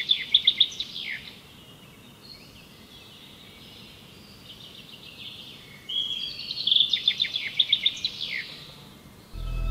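Woodland birdsong: a loud run of fast, repeated high notes ending in a falling sweep near the start, a second similar run about six seconds in, and quieter calls between them.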